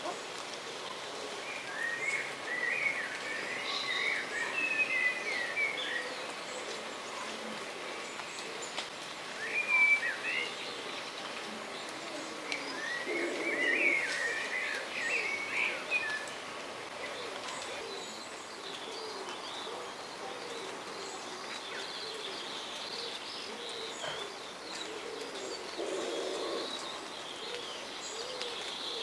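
Wild birdsong: several bursts of quick, warbling songbird phrases a few seconds apart, over fainter twittering from other birds and a few lower calls.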